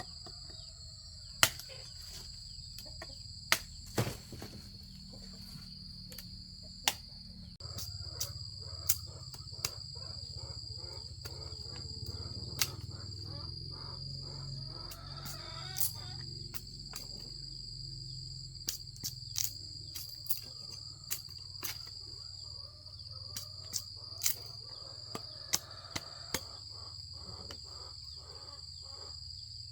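Insects droning at a steady high pitch, over a low rumble, with scattered sharp clicks and snaps throughout; the loudest are a few single cracks in the first several seconds.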